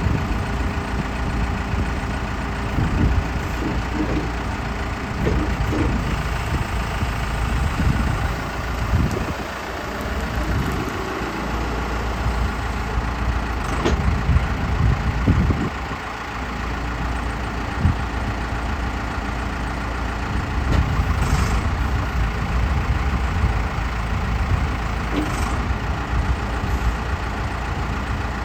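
Four-cylinder diesel engine of a Case 580 Super L loader backhoe running, its speed rising and falling repeatedly.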